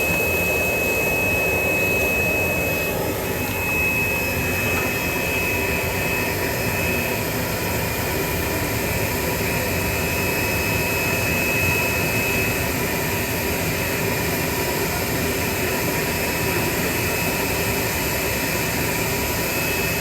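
Automatic top-labeling machine and its conveyor line running: a steady machine whir with a high, steady whine that fades a few seconds in and returns near the end.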